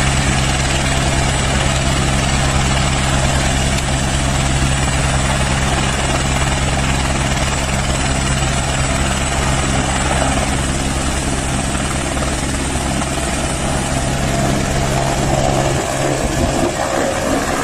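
Light helicopter running at close range: a steady low rotor beat under a high turbine whine. Near the end it lifts off and climbs away, and the low rotor sound weakens.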